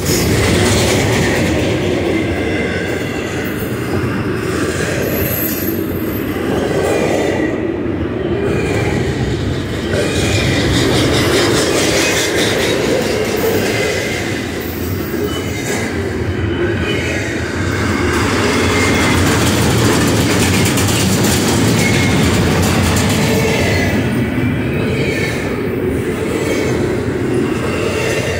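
Double-stack intermodal freight train passing close by: steady rumble and rattle of steel wheels on rail as the loaded well cars roll past. Thin, high wheel squeals come and go.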